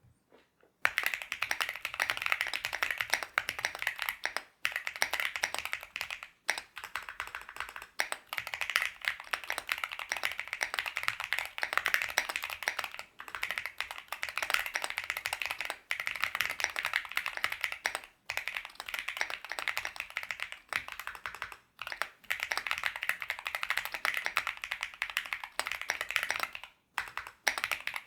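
Fast, continuous typing on a High65 V2 65% gasket-mount mechanical keyboard with stock Gateron Baby Kangaroo tactile switches, PBT Cherry-profile keycaps and a PC plate with full foams. The keystrokes start about a second in and run on, with a few short pauses.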